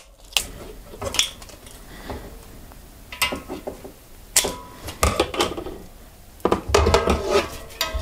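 Handling noises of a road bicycle wheel being worked on a workbench during tubeless rim taping: a series of separate knocks and light metallic clinks, busiest near the end as the wheel is lifted.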